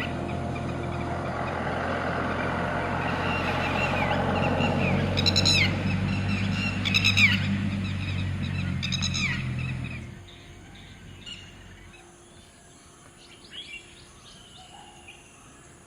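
Wild birds calling, the loudest being three quick falling calls about two seconds apart, over a steady low rumble that cuts off abruptly about ten seconds in. After that, only fainter scattered chirps remain.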